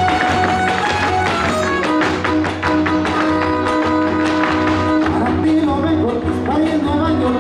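Trío huasteco playing a huapango: violin holding long notes over strummed jarana and huapanguera. Dancers' shoes strike the stage floor in a fast zapateado, the stamps thickest in the middle.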